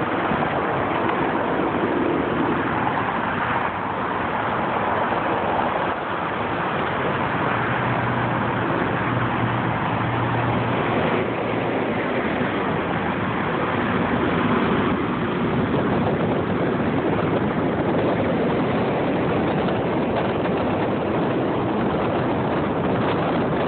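Steady road, tyre and wind noise from a car driving in freeway traffic, heard from inside the car, with a low hum for a few seconds near the middle.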